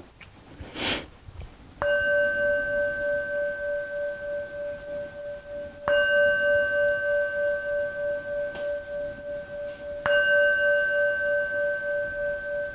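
Handheld singing bowl struck three times with a mallet, about four seconds apart, each strike ringing on with a steady tone that wavers in a slow pulse until the next strike. It is rung to close a Shavasana meditation.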